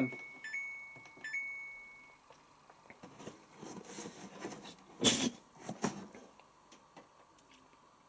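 Samsung Ecobubble washing machine control panel beeping twice as its Spin button is pressed, about half a second and a second and a half in, the last tone dying away by about two seconds. Soft handling noises follow, the loudest a brief one about five seconds in.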